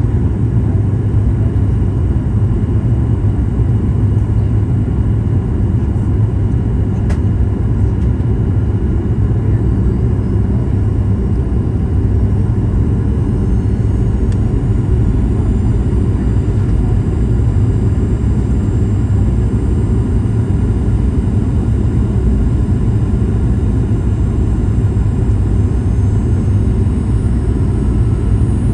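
Boeing 737-900ER cabin noise from a forward seat: a steady, loud rumble of airflow and CFM56 jet engines, with faint high steady whines above it. There is a single sharp click about 7 seconds in.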